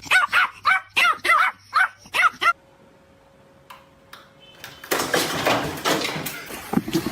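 A dog barking quickly, about seven short high-pitched barks in a row, then stopping. After a short quiet gap, a louder stretch of noise follows.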